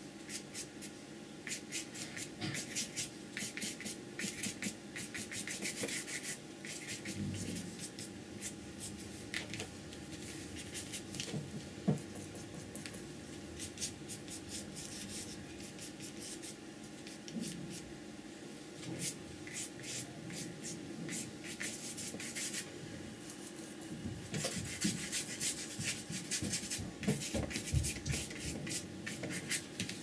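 Flat brush scratching and dabbing paint onto paper in quick, rasping strokes, in runs with a quieter stretch in the middle. There is one louder tap partway through.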